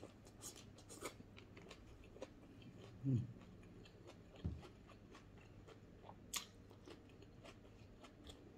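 Close mouth sounds of a person chewing food, with scattered small wet clicks. About three seconds in comes a short low sound from the throat that falls in pitch, and a sharp click near six seconds.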